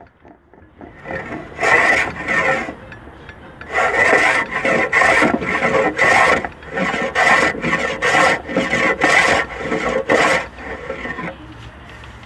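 Metal hand plane shaving along a wooden boat keel board in a run of short, repeated strokes that stop about a second before the end.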